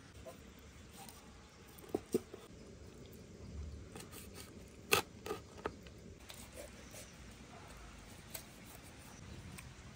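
Large knife jointing a raw whole chicken on a wooden cutting board: scattered sharp knocks as the blade chops through and strikes the board, a pair about two seconds in and the loudest around five seconds in.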